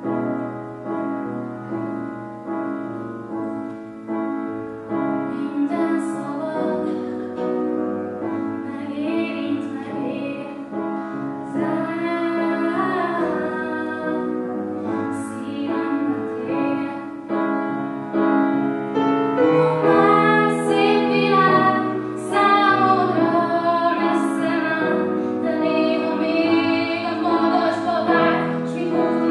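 A woman singing a song to piano accompaniment, growing louder about two-thirds of the way through.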